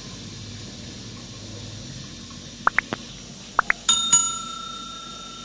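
Subscribe-button overlay sound effect: a quick run of five short clicks, then a notification bell struck twice that rings out and fades over a couple of seconds. Under it runs the steady hiss of a gas burner cooking under a covered pot.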